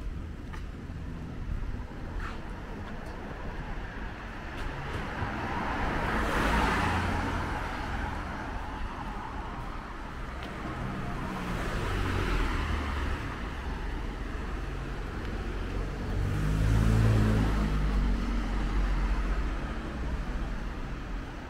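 Three road vehicles pass one after another, each a rise and fall of tyre noise with engine hum. They peak about six, twelve and seventeen seconds in, and the last is the loudest.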